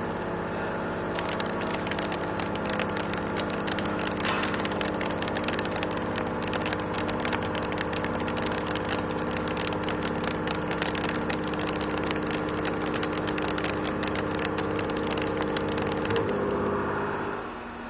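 63 mm face mill with HNKX inserts cutting a workpiece at 2 mm depth of cut: a dense, rapid crackle of the inserts biting, over the steady hum of the machine spindle. The cut starts about a second in and stops a little before the end, and the spindle's hum dies away shortly after.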